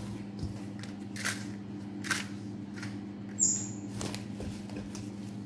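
Clear plastic covering crinkling as it is handled and pulled off a stainless steel mixing bowl, with a few scattered crackles and a brief high squeak about three and a half seconds in, over a steady low hum.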